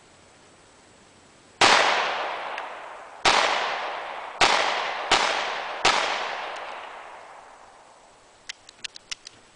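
Five handgun shots in uneven succession, the last three close together, each followed by a long fading echo. A few faint clicks near the end.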